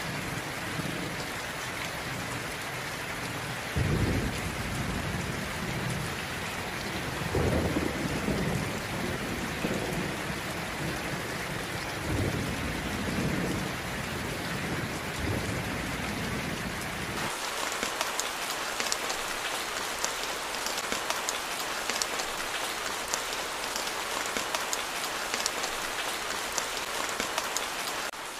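Steady heavy rain with several low rolls of thunder, the loudest about four and eight seconds in. About seventeen seconds in, the sound switches abruptly to a denser, sharper patter of rain on hard surfaces with no thunder.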